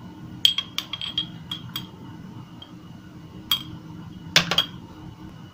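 Steel spoon clinking against a small glass tumbler while pressing crushed Oreo biscuit mixture down into a layer: irregular light clinks with a brief ringing tone, in two clusters with a pause between them.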